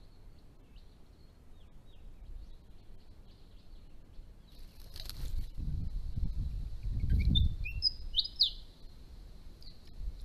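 Diamond firetails giving short, high chirps and whistles, faint at first, then a few louder calls near the end, over a low rumble.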